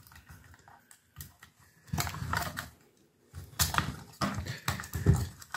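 Hand-handling noise from a Plessey PV1754X control box: its circuit board and metal chassis click, tap and knock as they are worked by hand. The clicks come in two clusters, about two seconds in and again from about three and a half seconds.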